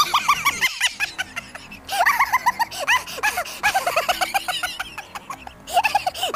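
Background music: a quick run of short, high notes with a clicking beat, briefly breaking off a little under a second in.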